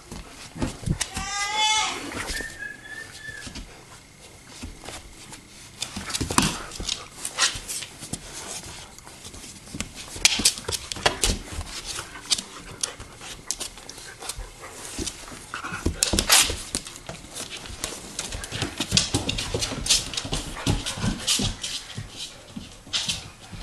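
A Bernese mountain dog puppy and a raccoon scuffling together on a tile floor: many irregular clicks and knocks of paws and claws on the tiles, with one short, high, rising cry about a second in.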